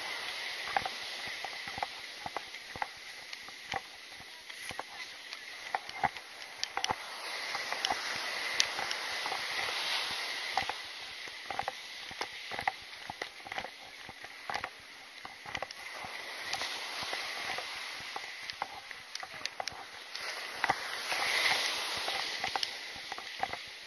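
Ocean surf hissing steadily, swelling twice, under a continual run of light clicks and knocks from gear jostling as someone walks on sand.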